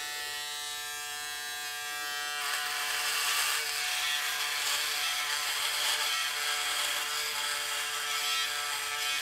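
Braun Series 6 electric foil shaver running with a steady buzz. About two seconds in it is pressed to the face, and a noisy cutting sound of thick stubble being shaved joins the hum and stays louder.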